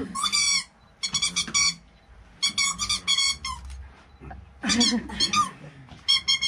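A clown's squeaker giving short bursts of high, rapid squeaks, about five in all, rising and falling in pitch like squeaky gibberish chatter.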